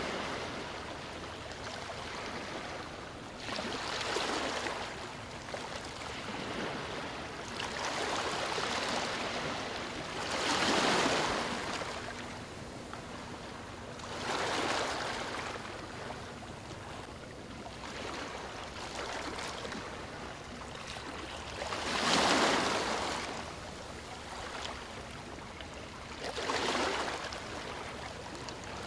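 Ocean waves washing in, a steady wash of surf that swells and ebbs every few seconds at an uneven pace.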